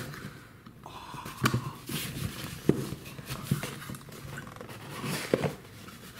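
Cardboard shipping box being handled and opened: rustling and scraping of cardboard with a few sharp taps and clicks as the flaps are pulled open.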